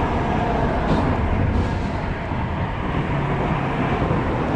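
Road traffic crossing the concrete highway bridges overhead: a steady rumble.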